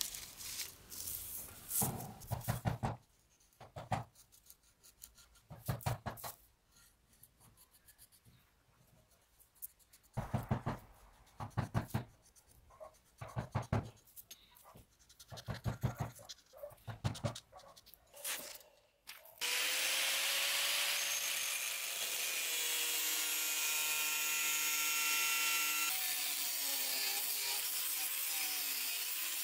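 Intermittent rubbing and scraping as a paper template is handled and traced onto a rusty steel saw blade. About two-thirds of the way in, an angle grinder with a thin cut-off disc starts abruptly cutting into the blade's steel and runs steadily with a whining tone.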